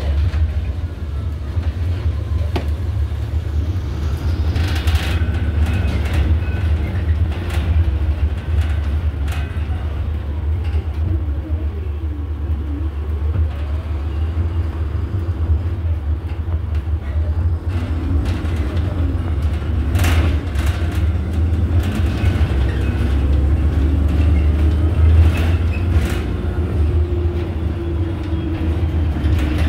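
Inside an Iveco Urbanway city bus under way: a steady low rumble of engine and road noise, with scattered knocks and rattles and a whine that dips and then rises in pitch about halfway through.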